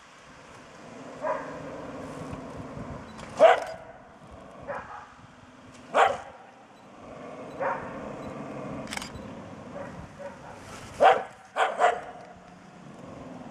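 Small dog barking at a bear: single sharp barks every second or two, about nine in all, with the last three coming in quick succession near the end.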